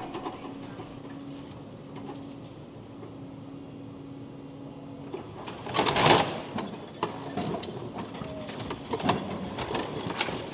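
Demolition excavator at work tearing down a building, with a steady mechanical hum for the first five seconds, a louder burst of noise about six seconds in, then scattered knocks and clatters.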